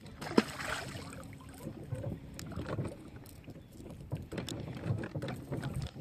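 Wind buffeting the microphone in uneven gusts, with scattered small clicks and knocks, the sharpest about half a second in.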